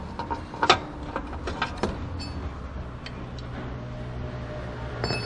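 A few sharp clicks and light knocks of hands and metal parts under a car on a lift, then a steady low hum that sets in about three and a half seconds in.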